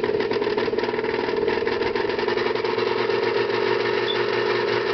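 1978 Emerson 36-inch friction-drive ceiling fan running with a steady motor hum and a fast, regular clunk once every revolution. The clunk comes from a worn motor shaft and makes the fan noisier than normal.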